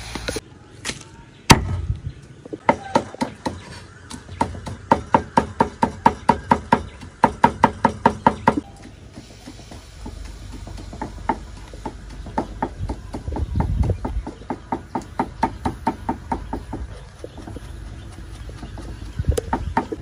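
Rapid, regular knocking of a kitchen utensil, about three to four strikes a second, in two runs: a loud run that cuts off suddenly near the middle, then a quieter one.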